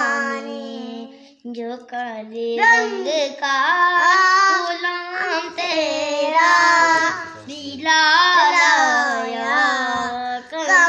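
A boy singing an Urdu naat solo, without instruments, in several long phrases with drawn-out, wavering notes.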